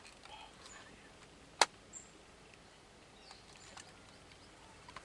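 Quiet outdoor background with one sharp click about a second and a half in, a few fainter clicks, and some faint short high chirps.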